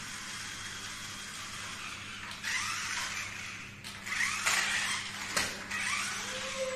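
Toy 1:18-scale 4x4 RC rock crawler whirring as it drives across a tiled floor: its small electric motor and gearbox whine rises in pitch three times as the throttle is opened. There is a single sharp knock a little after the middle.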